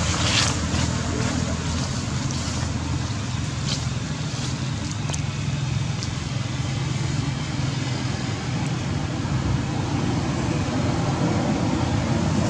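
Steady low motor hum, like a nearby engine running, with a few faint clicks in the first few seconds.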